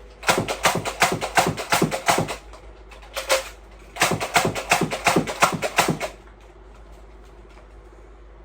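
Nerf Zombie Strike Flipfury blaster being slam-fired: rapid clacks of the pump-prime slide and dart shots in two fast runs of about two seconds each, one for each barrel. A single clack between them is the barrel being flipped over.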